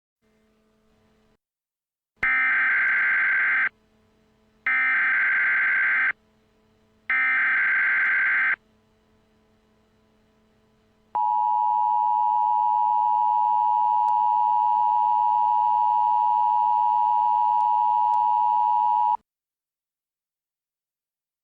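Emergency Alert System tones: three bursts of SAME digital header data, each about a second and a half long and a second apart, with a harsh warbling data sound. Then the two-tone EAS attention signal, 853 and 960 Hz sounded together, holds steady for about eight seconds and cuts off abruptly.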